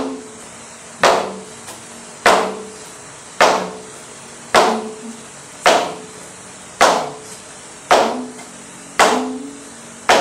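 Flamenco shoe stamps on a wooden practice board (tabla), one foot lifted and dropped with its full weight, about one stamp a second at an even pace. Each stamp is a sharp crack followed by a short ringing from the board.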